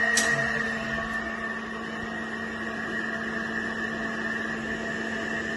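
Three-phase electric motor running on a Motortronics VMX-Synergy soft starter under bench test, giving a steady electrical hum and whine, with a sharp click about a quarter second in.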